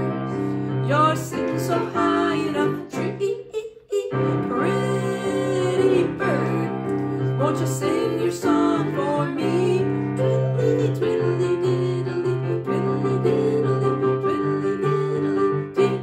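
Electronic keyboard playing piano chords while a woman sings a children's song in a simple melody.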